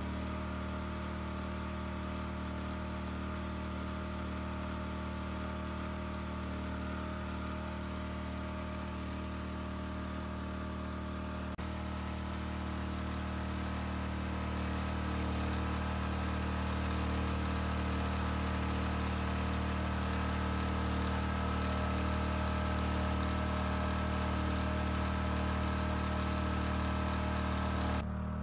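An engine running steadily at an even idle, its pitch unchanging, growing slightly louder about halfway through.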